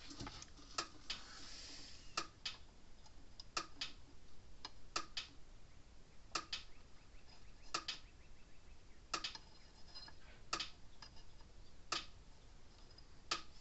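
Sharp single clicks repeating at a steady pace of about one every one and a half seconds, a few of them doubled, over a faint background hiss.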